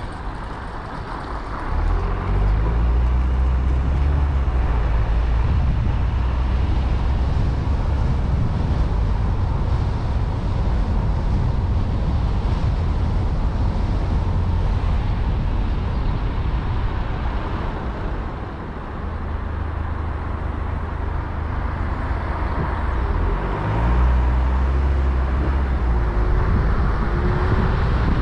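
Car engine and tyre noise heard from inside the moving car. The engine note rises and grows louder about two seconds in, and again a few seconds before the end, as the car pulls away.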